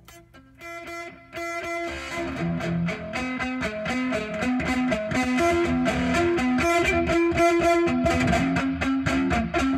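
Electric guitar played with a pick, single notes in a slow melody. About two seconds in it grows louder and fuller, with low bass notes and a steady beat underneath.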